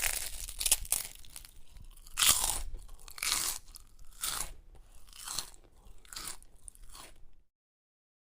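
Potato chips being crunched and chewed, with a crunch about once a second that gets fainter and stops about seven seconds in.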